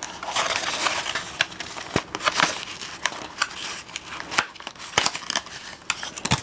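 Cardboard packaging being handled: a cardboard insert rustling and scraping as paper leaflets are worked out of its sleeve, with irregular sharp clicks and taps.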